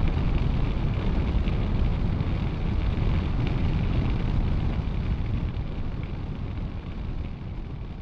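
Yamaha Tracer 700 motorcycle under way: wind rushing over the microphone with the bike running underneath, fading down over the last three seconds.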